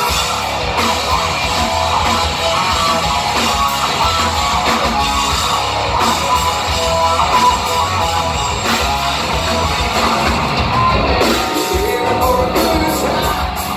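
Live hard-rock band playing an instrumental passage, with electric guitar to the fore over bass and drums.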